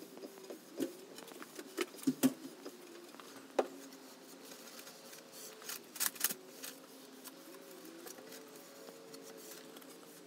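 Cotton rag rubbing over a freshly finished wooden board as the excess first coat of wipe-on varnish-oil finish is wiped off, with scattered light knocks and taps as the boards are handled on the bench.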